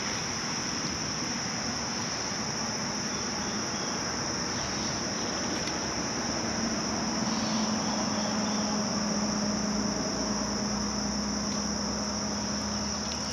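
Steady high-pitched chorus of insects, with a faint low hum coming in about halfway through.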